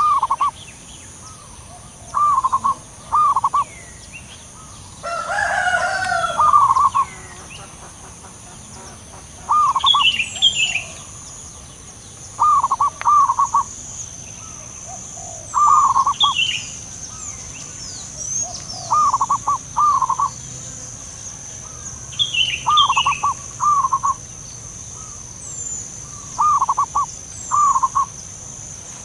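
Zebra doves cooing back and forth, each call a short staccato run of quick notes, repeated every two to three seconds. Higher, quicker chirps cut in now and then.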